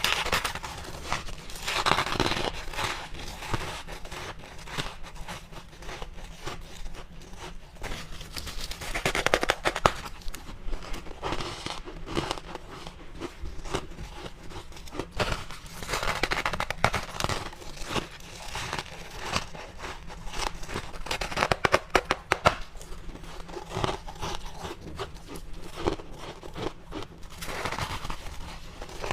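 Freezer frost being bitten and chewed up close: dense, crackly crunching that swells into louder bouts every several seconds.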